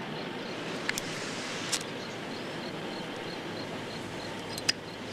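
Steady hiss with no voice, broken by sharp clicks about a second in, near two seconds and near the end, over a faint high ticking that repeats evenly.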